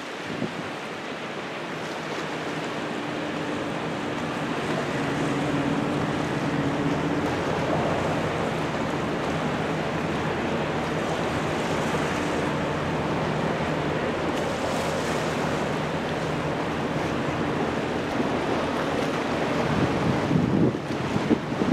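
Steady rush of water along the hull of a large container ship passing close by, with a faint low engine hum beneath it. Wind buffets the microphone near the end.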